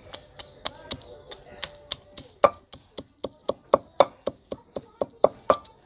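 Wooden pestle pounding dried red chillies and salt in a stone mortar: a steady run of sharp knocks, about three or four a second at first, quickening to about six a second from about halfway.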